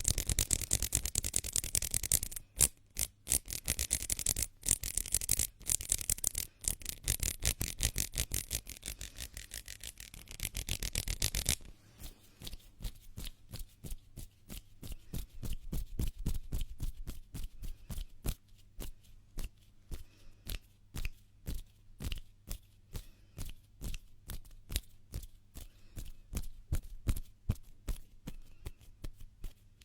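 Close-miked hands rubbing together: fast, continuous, hissy rubbing for about the first eleven seconds, then it drops suddenly to softer, separate rubbing strokes a few times a second.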